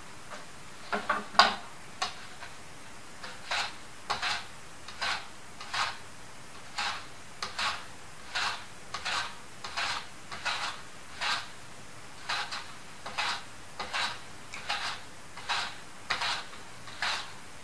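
A plantain pushed across a handheld mandoline slicer again and again, cutting thin slices in a steady rhythm of short strokes, roughly one and a half a second. The first two strokes, about a second in, are the loudest.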